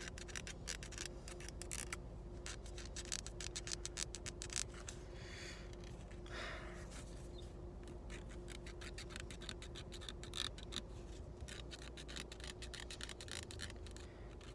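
Scratch-off lottery tickets being scratched: quick, fairly quiet rasping strokes in runs, with a short pause and a soft hiss a little before halfway.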